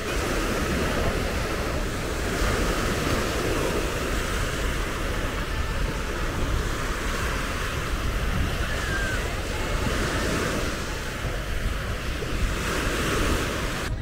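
Sea waves washing onto a beach, swelling and easing every few seconds, with wind rumbling on the microphone.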